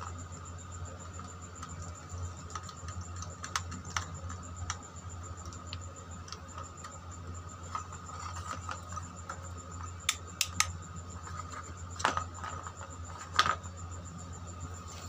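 Light plastic clicks and taps as a wired electrical switch-and-socket board is handled and worked with a screwdriver, with a few sharper knocks near the end as the board is turned over and set down. A steady low hum and a continuous cricket chirp run underneath.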